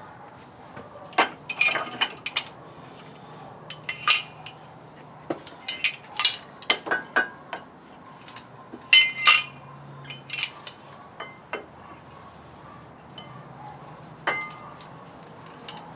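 Metal parts clinking and clanking irregularly as a winch hook and hawse fairlead plate are handled against the winch and steel bumper, with the loudest knocks about four and nine seconds in.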